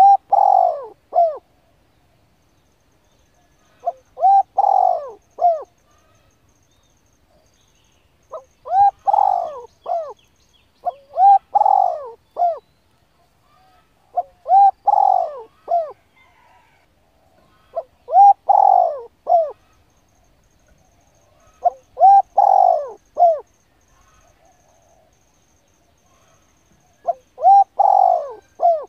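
A bird calling: a short phrase of a few quick, arched notes, repeated about every three to four seconds, eight times.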